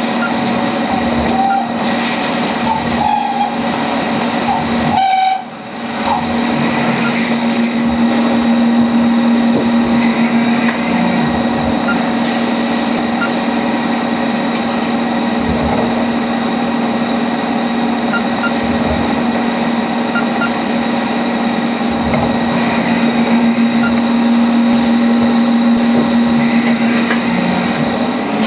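CNC lathe running and cutting a workpiece: a steady machine hum with a constant whine over cutting noise, briefly dropping away about five seconds in.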